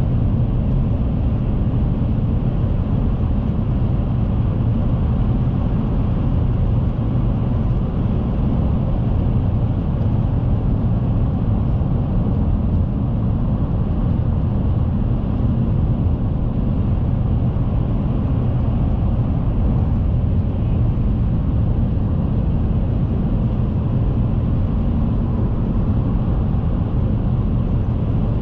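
Alfa Romeo 159 on the move at a steady speed: a constant low rumble of engine and road noise that holds the same pitch and level throughout.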